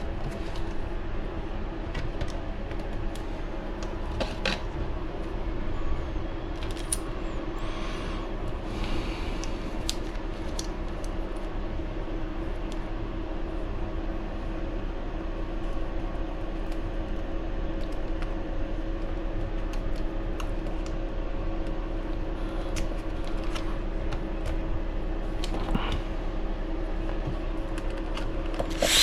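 Scattered light clicks and taps of small parts and hand tools being handled while RC buggy shocks are bolted on, over a steady background hum.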